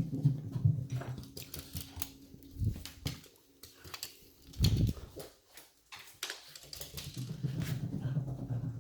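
Boston terrier running about on stairs, her claws clicking rapidly and her paws thudding heavily at times.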